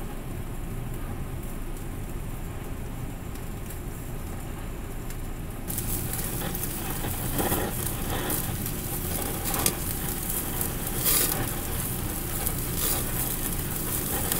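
Sauce-marinated Iberico pork and pork belly sizzling on a tabletop yakiniku grill as flames flare up through the wire grate, with sharp crackling pops. The sizzle grows louder and brighter about six seconds in.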